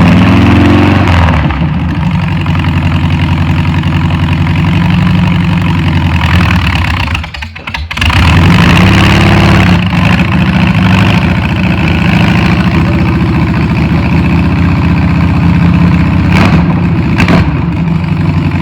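Air-cooled VW Beetle flat-four engine running loud and close, its speed rising just after it fires. Its sound drops away briefly about seven seconds in, then comes back up and runs on steadily with small rises in speed.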